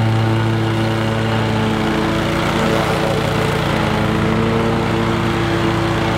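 Toro Grandstand MultiForce stand-on commercial mower running with its blades cutting grass, a steady engine note whose tone shifts from about two seconds in and settles back near the end.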